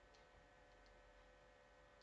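Near silence: faint room tone with a few faint, light clicks.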